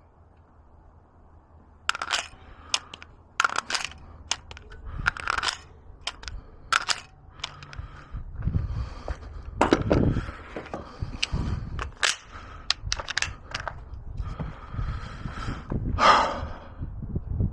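Irregular sharp clicks and knocks, a dozen or more, with rumbling handling noise growing after about eight seconds.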